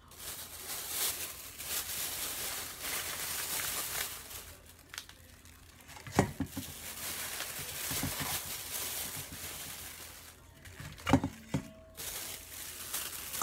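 Crinkling and rustling as a head of cabbage and its plastic bag are handled over a stainless steel mixing bowl. Two knocks come through it: one about six seconds in and a louder one near the end.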